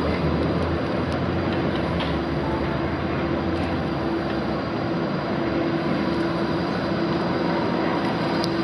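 Bombardier Flexity 2 light-rail tram approaching along street track, a steady hum from its drive growing stronger as it nears, over a constant wash of street and traffic noise.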